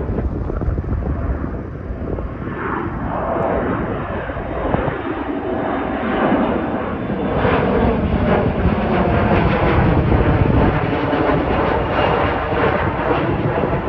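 Twin-engine jet airliner climbing out overhead: loud, steady jet engine noise, with a whine that falls in pitch about two to four seconds in as the plane passes.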